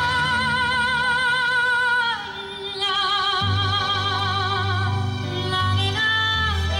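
Woman singing live through a microphone and PA, holding long notes with a wide, even vibrato. A low bass accompaniment comes in about three and a half seconds in.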